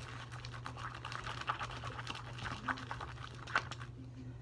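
Slime made of glue and Tide activator being stirred with a stick in a plastic bowl: irregular wet, sticky clicks and squelches as it comes together.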